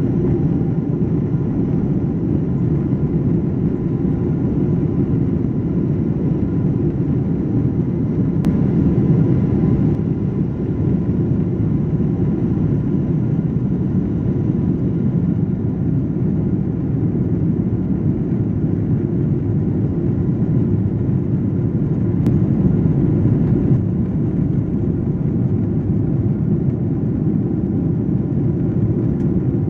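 Cabin noise of a Boeing 777-200ER with its GE90 turbofans at takeoff power, a steady low rush through the end of the takeoff run and the initial climb.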